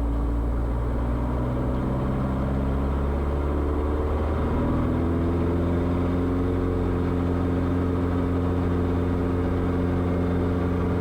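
Light aircraft piston engine and propeller of a Diamond trainer, heard from inside the cabin, running steadily. About four seconds in, the engine note dips briefly and then rises to a higher, steady pitch as power comes up for the takeoff.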